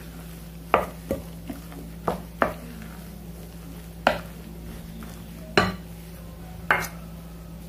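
Wooden spoon stirring thick egg-and-vegetable omelette batter in a glass bowl, knocking against the bowl's side about seven times at uneven intervals.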